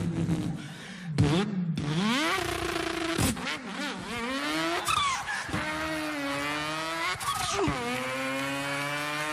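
A man's vocal impression of a racing car engine, done with the mouth: the engine note revs up in pitch, cuts off and climbs again several times like a car accelerating through its gears.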